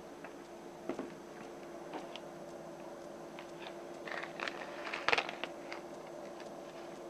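Light clicks and knocks of small parts being handled, bunched together about four to five seconds in, over a steady low hum.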